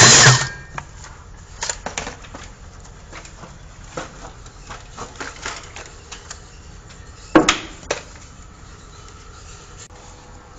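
A loud power tool cuts off in the first half second, followed by scattered light knocks and clicks of hand work, with one sharper knock about seven and a half seconds in and a smaller one just after.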